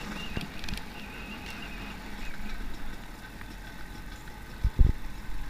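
Enduro dirt bike ridden slowly over rough ground, its engine running steadily at low revs. Two heavy low thumps come close together near the end.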